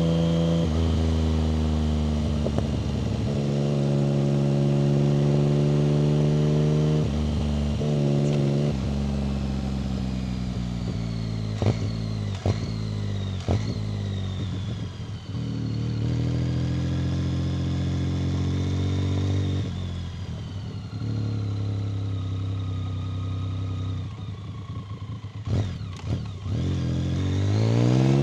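1990 BMW K75's three-cylinder engine under way: it pulls up through several gear changes, then the pitch falls as the bike slows, with a few sharp clicks. It picks up again, drops back to a low steady note, and revs up quickly near the end.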